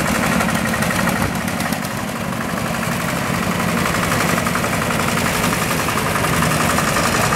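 Vintage tractor engines running as the tractors drive slowly past, with a steady, fast, even beat.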